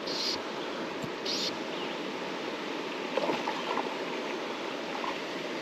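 Mountain trout stream running, a steady rush of water, with two short hisses in the first second and a half.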